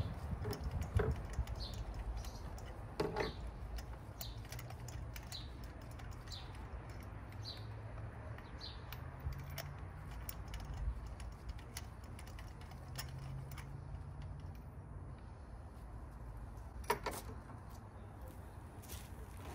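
Faint metal clicks and taps of a spark plug socket as new spark plugs are threaded hand-tight into the cylinder head of a 1.4-litre turbo four-cylinder, over a steady low rumble, with a short high chirp about once a second in the first half. A louder clatter comes near the end.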